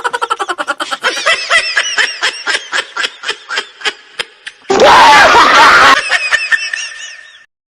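High-pitched giggling laughter, a rapid run of short arching 'hee' syllables several a second. A loud, rough burst lasting about a second comes near the middle. The giggles then die away.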